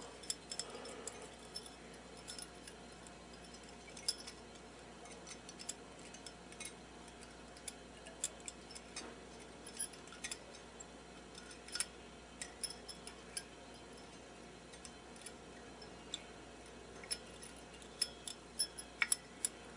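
Faint, scattered small clicks and taps from a glass vacuum tube and its Bakelite base being handled while the tube's four wire leads are fed down into the base's pins. The clicks come more often near the end.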